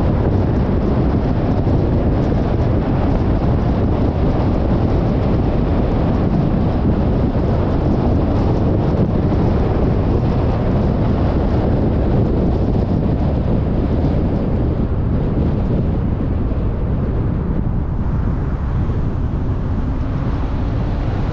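Steady road noise of a car driving at speed, tyre rumble with wind rushing over the microphone. The higher hiss eases a little about two-thirds of the way through.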